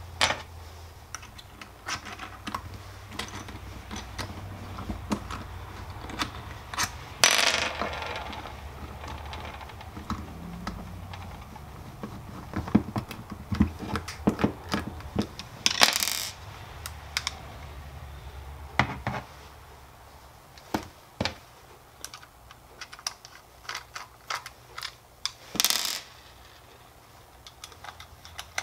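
Screwdriver and small Torx screws clicking and clinking as the screws are backed out of a cordless rotary tool's plastic casing and set down on a hard workbench, with three brief louder rasping noises spaced several seconds apart. A low hum underneath stops about two-thirds of the way through.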